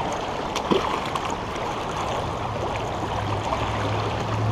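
River water running, a steady rushing wash, with a low rumble coming in about halfway through.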